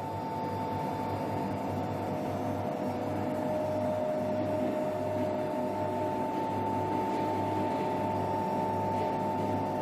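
A car lift's electric motor running with a steady hum, raising the car.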